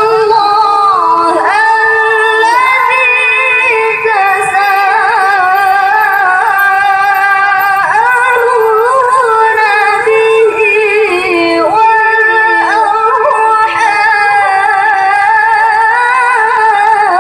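A woman's voice in melodic Quran recitation (tilawah), amplified through a handheld microphone, drawing out long held notes with wavering ornaments.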